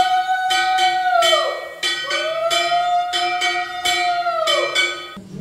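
A brass puja hand bell rung steadily, about three strokes a second, while a conch shell is blown twice in long notes, each rising at the start, held, then falling away.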